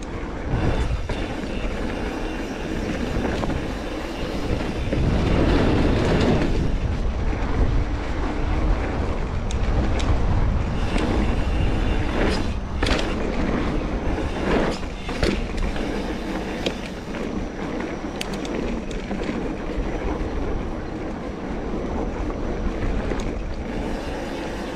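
Mountain bike being ridden along a dirt trail: a steady rushing rumble of tyres and moving air, with the bike rattling and sharp knocks over bumps, several of them a little past halfway.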